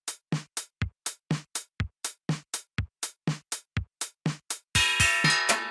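Background music: an electronic drum-machine beat, about four hits a second with a kick on every other one, joined near the end by sustained synth chords.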